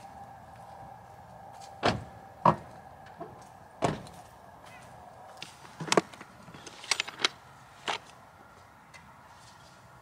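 A run of sharp knocks and thuds, about seven spread over several seconds, as firewood and camping gear are handled around a pickup truck and a steel fire ring.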